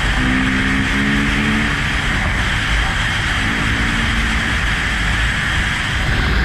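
Dirt-bike engine running at a steady pitch while riding along at speed, half buried under loud wind rush on the camera microphone.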